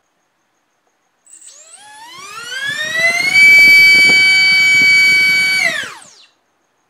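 BrotherHobby Tornado T1 1407-3600KV brushless motor spinning a Gemfan 3030 three-blade bullnose prop on 4S, run up to full throttle on a static thrust stand. Its whine rises steeply in pitch about a second in, holds steady for about two seconds at full throttle, then falls away and stops.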